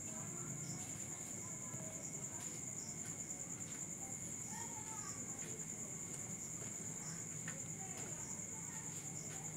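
Crickets trilling steadily in a continuous high, fast-pulsing chirr, over a low steady hum.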